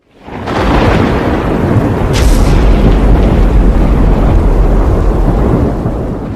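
Thunder: a loud rolling rumble that swells in within half a second and holds, with a sharp crack about two seconds in, easing slightly near the end.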